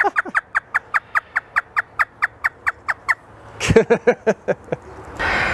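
African grey parrot imitating a hysterical laugh: a fast run of short, falling, high notes, about six a second for three seconds, then a few lower laughing 'ha' sounds.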